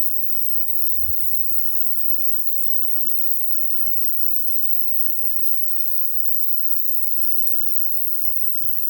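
A steady high-pitched hiss with no break, with a few faint clicks over it.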